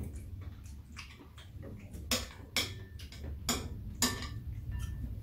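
Metal chopsticks and a spoon clinking against bowls and a metal serving tray during a meal: a run of sharp, separate clinks, some with a brief ring, the clearest ones coming in the second half. A steady low hum runs underneath.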